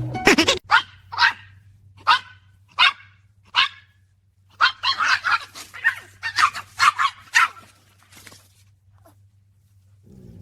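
Dog barking: single sharp barks with pauses between them for the first few seconds, then a fast run of barks from about halfway, dying away near the end.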